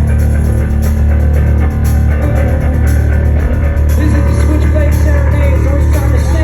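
Live rock band playing an instrumental passage with electric guitar and bass, no vocals.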